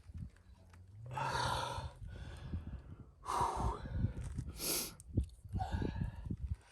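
A man breathing hard in four heavy huffs, the strain of forcing a tire plug into a puncture, over dull knocks from handling the tire and tool.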